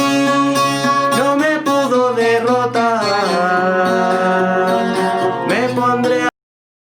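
Chilean guitarrón being plucked and strummed under a singing voice, which bends through a phrase and then holds one long note to close the song. The music cuts off suddenly about six seconds in.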